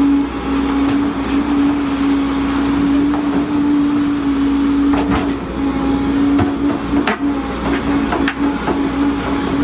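Volvo EC210DL crawler excavator running under work, a steady droning hum from its engine and hydraulics. Several sharp knocks and clanks come in the second half.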